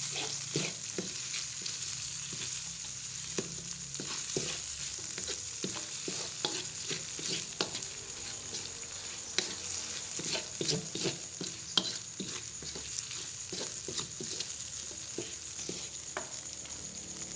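Ground chili spice paste frying in oil in a metal wok: a steady sizzle, with irregular scrapes and taps of a spoon stirring it against the pan.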